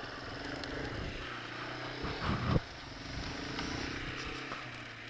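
Engine of a 1989 Yamaha Moto-4 250 ATV, a single-cylinder four-stroke, running steadily under way on a dirt road, with a brief loud low rumble about two seconds in.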